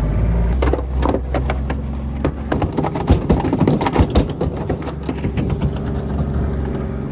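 Side-by-side UTV engine running steadily while pushing snow with a small front plow, with a dense run of irregular clatter and knocks from the plow blade scraping the driveway for most of the middle seconds.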